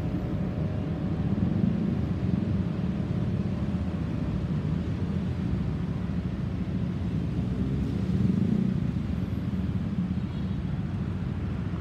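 Airbus A350-900 with Rolls-Royce Trent XWB turbofans passing high overhead: a steady low jet rumble that swells briefly about a second and a half in and again about eight seconds in.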